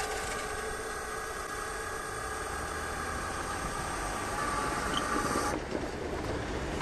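Electric drive of a railway level-crossing barrier whining steadily as it raises the boom, cutting off suddenly about five and a half seconds in when the boom reaches the upright position.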